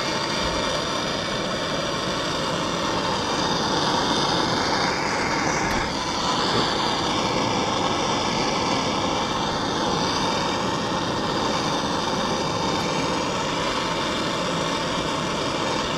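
Handheld gas torch burning with a steady hiss, its flame held on the metal sleeve of an old subframe cradle bushing to heat the bushing until it smokes and loosens.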